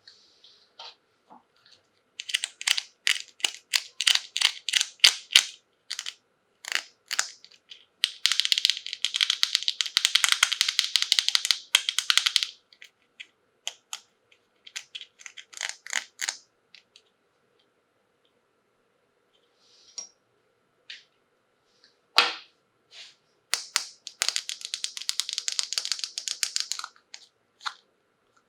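Crinkly plastic toy packaging being handled and opened, in several bursts of dense crackling with scattered single clicks and a short quiet gap between them.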